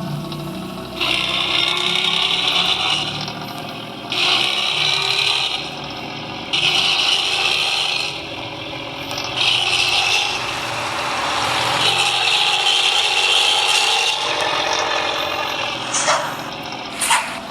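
Hino truck's diesel engine and 'ngorok' (snoring) modified exhaust under way, surging in about six throttle bursts of a second or two each with lulls between.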